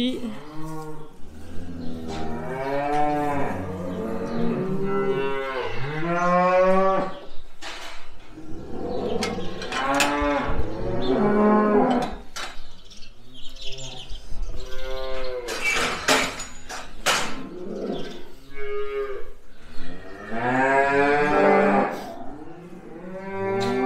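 Several cows mooing over and over, long drawn-out calls that sometimes overlap, with a few sharp knocks between the calls near the middle.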